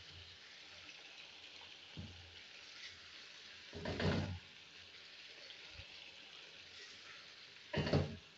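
Chicken karahi gravy sizzling softly in a metal karahi over the flame, with a faint knock about two seconds in and two louder stirring noises from a slotted ladle, about four seconds in and again near the end.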